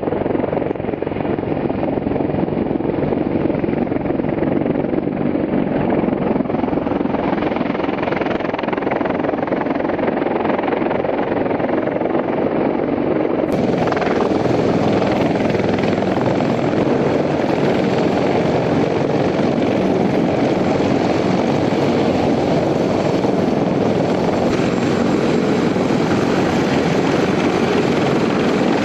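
CH-53E Super Stallion heavy-lift helicopter's three turboshaft engines and rotors running steadily. The sound turns abruptly brighter about thirteen seconds in.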